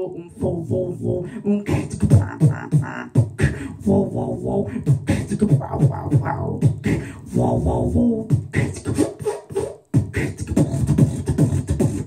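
Solo beatboxing into a handheld microphone: a fast, dense rhythm of mouth-made drum sounds and sharp clicks, with a short break about ten seconds in.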